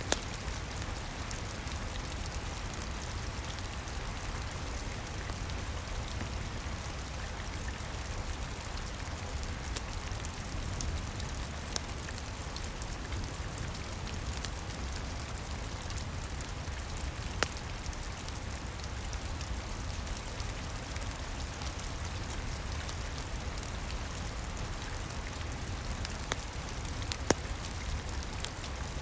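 Steady rain falling, an even hiss of drops, with a few sharp, isolated crackles from a wood fire.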